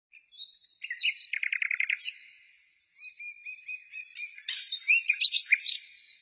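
Birds singing: chirps and whistled notes in two phrases, the first with a quick trill of about eight notes, the second, after a short pause, more varied.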